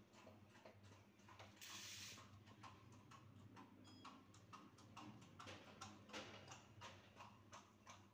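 Near silence: faint room tone with light, irregular clicks and a brief soft hiss about two seconds in.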